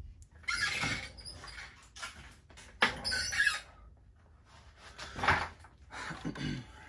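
Chair squeaking in four short, irregular bursts as someone sitting in it shifts their weight.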